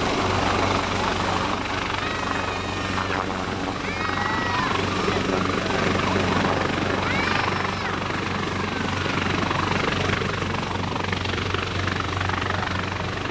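AgustaWestland HH-139A (military AW139) helicopter in flight: steady, even noise from its five-bladed main rotor and twin turboshaft engines, with a constant low drone underneath.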